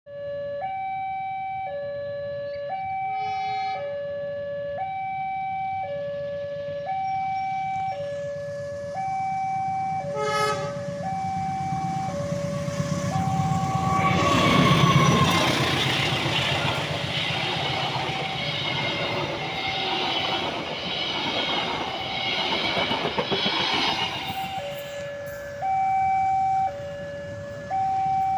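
Railway level crossing warning alarm sounding a repeating two-tone signal, a low and a high note taking turns, each held just under a second. A few short horn beeps sound about three seconds in and again about ten seconds in. About fourteen seconds in, a CC201 diesel-electric locomotive and its passenger coaches pass close by. For about ten seconds the noise of the engine and of the wheels on the rails drowns out the alarm, which is then heard again.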